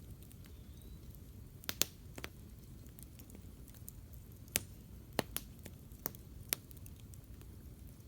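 Wood campfire crackling, with irregular sharp pops and snaps over a low steady rumble of the burning fire.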